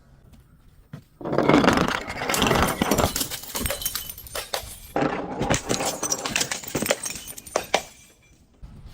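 Crunchy objects being crushed. There are two long spells of dense crackling, crunching and snapping with many sharp cracks, beginning about a second in and fading near the end.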